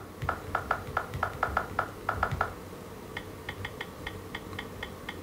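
Microsoft SwiftKey keyboard's 'Android' keypress sound profile, played through an Android phone's speaker: a quick run of short, dull clicks as keys are tapped. After about three seconds it changes to an evenly spaced run of higher, two-tone clicks as the typed text is deleted.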